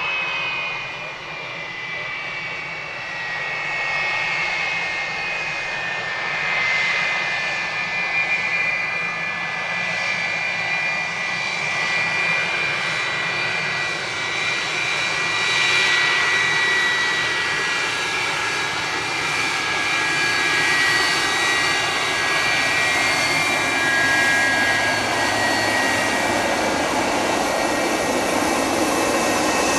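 McDonnell Douglas MD-83's rear-mounted Pratt & Whitney JT8D turbofans running: a jet whine with several high tones over a rushing roar, slowly getting louder.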